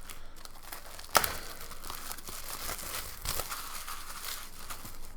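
Plastic shrink-wrap being torn and crinkled off a hardcover book, a steady crackling with a sharp snap about a second in.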